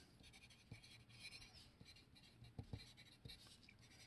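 Faint scratching of a wooden pencil writing words on paper in quick short strokes, with a few soft taps of the pencil on the page, the loudest a little past halfway.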